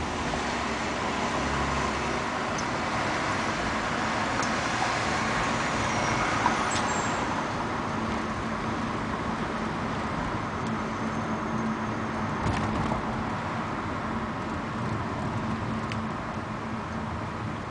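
Steady road noise heard from inside a moving taxi: tyres and engine in a continuous rush, with a few brief sharp ticks and a faint low hum that comes in about halfway through.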